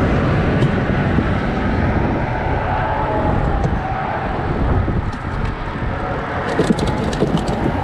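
Steady rumble of road traffic. About six and a half seconds in, a run of clicks and knocks as fish are handled into a plastic cooler.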